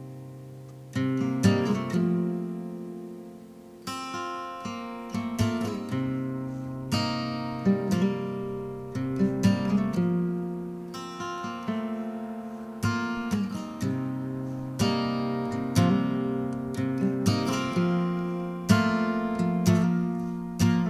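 Background music on acoustic guitar: slow plucked and strummed chords, each ringing out and fading before the next, about one every second or two.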